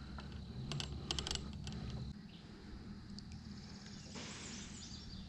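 A few light clicks and knocks of handling gear and fish in a plastic kayak, then faint outdoor background with a brief rustle near the end.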